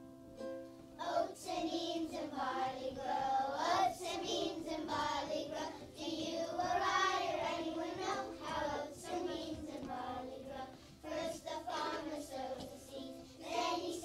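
A group of young children singing a song together over an instrumental accompaniment, the singing starting about a second in.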